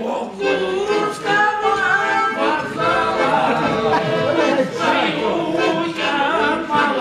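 Several voices singing a song together.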